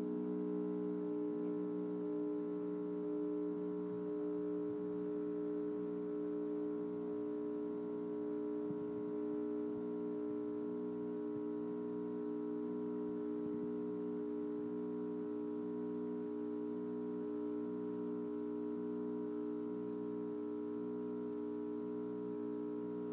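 Espresso machine pump humming steadily under load while a shot is brewing, a constant tone with several overtones.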